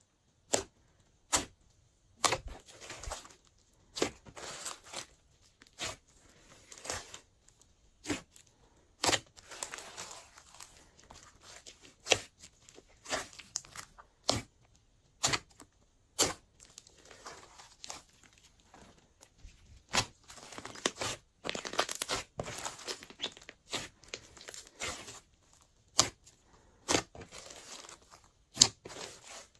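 Hands squishing and stretching glossy slime: sticky squelching and crackling, broken by sharp pops of trapped air about every second or two.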